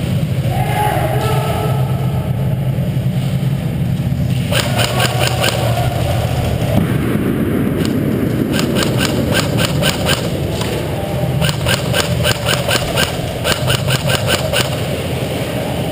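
Airsoft electric guns firing in three bursts of rapid, evenly spaced clicks, each about two to three seconds long, starting about four seconds in, over a steady low hum.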